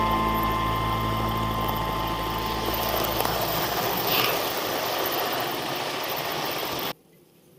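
A model railway train running along the track: a steady mechanical rumble of the locomotive's motor and wheels on the rails, with the tail of background music fading out at the start. The sound cuts off suddenly about seven seconds in.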